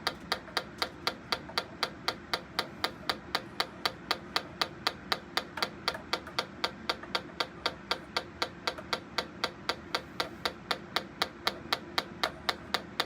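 Electronic combustible gas leak detector ticking steadily at about four to five clicks a second as its probe is passed over the gas-line joints. The rate stays even and does not speed up: no gas is being picked up at the new fittings.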